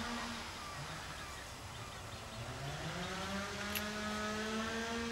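A motor engine running, its pitch rising steadily over a couple of seconds and then holding level.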